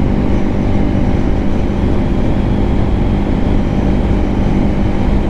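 Lifan KPM 200 motorcycle's 200 cc single-cylinder engine running steadily at cruising speed, with wind and road rush.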